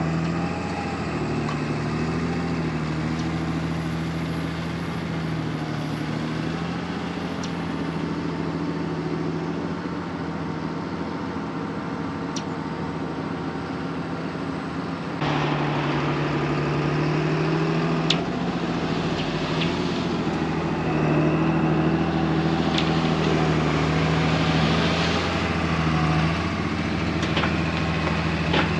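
Ford 8000 truck's Caterpillar diesel engine running steadily under a load of corn silage, heard from the cab, with a few light rattles; it grows louder about halfway through.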